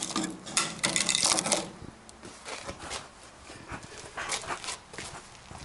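Thin, rusted fender sheet metal and an old patch being gripped and flexed by hand, crackling and scraping for about the first second and a half, then a few light scattered clicks and taps.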